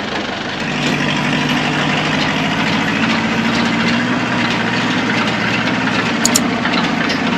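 Diesel engines running steadily under load: a farm tractor pulling an old Mercedes truck to tow-start it, while the truck's six-cylinder Mercedes diesel is turned over by the tow. The engine sound strengthens a little just under a second in.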